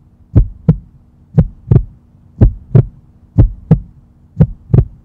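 Heartbeat sound effect: a steady lub-dub, five paired low thumps about one pair a second, over a faint steady hum.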